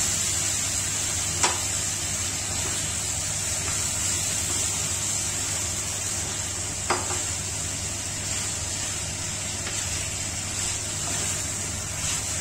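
Marinated chicken pieces sizzling in ghee and spice masala in a stainless steel pan as they are stirred with a wooden spatula. Two sharp knocks of utensils against the pan, one about a second and a half in and one about halfway through.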